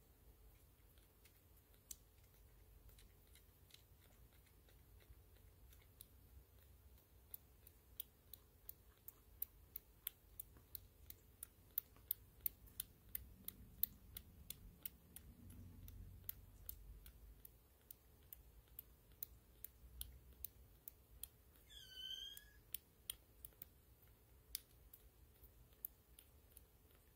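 Newborn kitten suckling on a bottle nipple: faint, even clicking and smacking of its mouth, about two a second. Near the end comes one short, high kitten mew.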